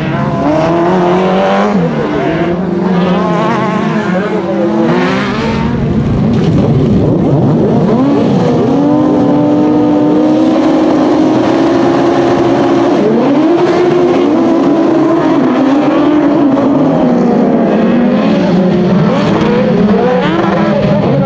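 Autocross race engines at full throttle on a dirt track. First a single car revving up and down through a slide, then several buggy engines holding a steady high note on the start grid before rising together as the pack accelerates away, about halfway through.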